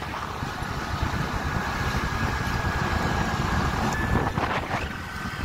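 Motorcycle running at road speed, a steady low rumble mixed with wind rushing past, heard from on the bike.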